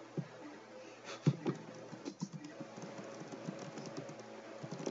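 Scattered clicks and taps of keys being pressed on a laptop keyboard, over a faint steady hum.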